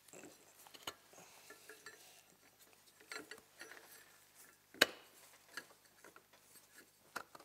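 Scattered small clicks and knocks from hard plastic drive sprockets and an aluminum hub being handled and fitted by gloved hands, with one sharp click about five seconds in as the loudest.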